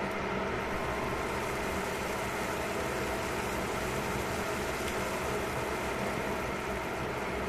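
A pot of stew simmering: a steady bubbling hiss over a steady low hum.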